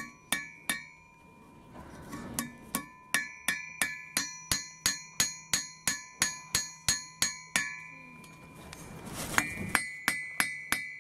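Hand hammer striking a steel bar held in tongs on an anvil while forging a branding-iron letter, each blow ringing the anvil. A steady run of blows about three a second, a pause, then another quicker run of blows near the end.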